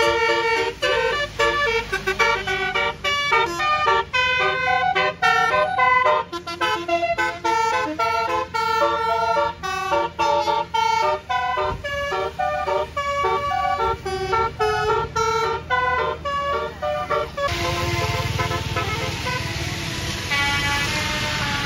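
Basuri 'telolet' musical air horn on a bus, its many trumpets playing a fast tune of short, changing notes. From a little before the end a loud rushing noise rises under the tune.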